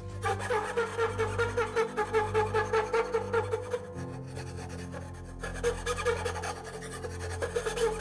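Flat metal file rasping back and forth across the end grain of a white cedar block, about four quick strokes a second, stopping briefly about four seconds in and then starting again. Background music runs underneath.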